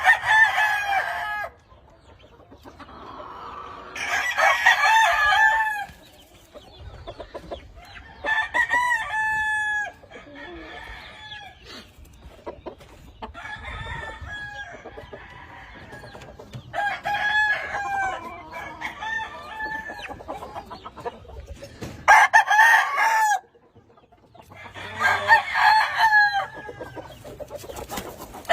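Gamefowl roosters crowing over and over, about eight crows, one every few seconds, some overlapping.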